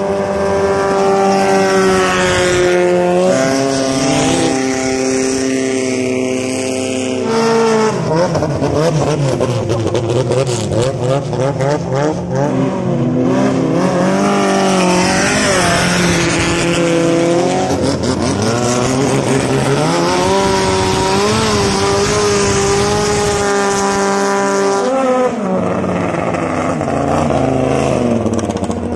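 Racing long-tail boat engines running hard at high revs, the pitch holding steady, then shifting in steps and wavering up and down through the middle.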